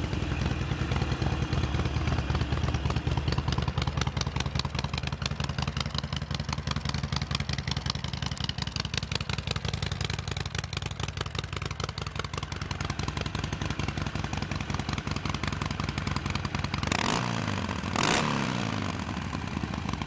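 2008 Harley-Davidson Sportster 1200 Nightster's fuel-injected 1200cc V-twin idling steadily, blipped twice near the end with a quick rise and fall in revs. It runs smoothly without rattling or ticking: the motor sounds tight.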